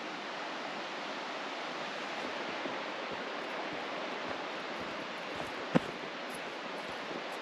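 Steady rush of flowing water, with one sharp click about three quarters of the way through.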